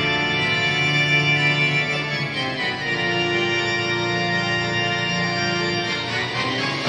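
Music of long, sustained held chords, the harmony changing about three seconds in and again near the end.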